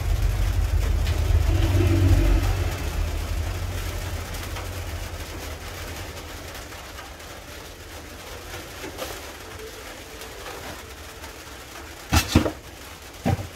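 A low rumble, loudest about two seconds in, dies away over the next few seconds. A few sharp clicks or knocks come near the end.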